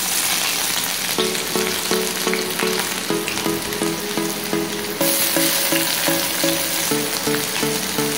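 Chopped onion frying in hot oil in a kadai: a steady sizzle that flares up louder about five seconds in. Short repeating notes of a quiet tune run underneath from about a second in.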